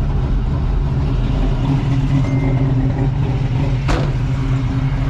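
A 1985 Oldsmobile Cutlass Supreme's engine idling steadily on a newly installed carburetor, holding a smooth idle without stalling. A single sharp click is heard about four seconds in.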